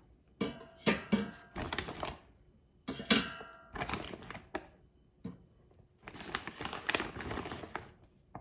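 Frozen breaded chicken strips knocking against the air fryer basket as they are laid in one by one, in several clusters of hard clicks. There is a longer stretch of rustling and crinkling near the end.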